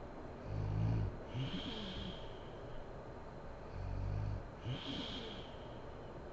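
A sleeping woman snoring, two breaths a little over three seconds apart. Each is a short, low, rattling snore on the in-breath followed by a breathy, whistly out-breath.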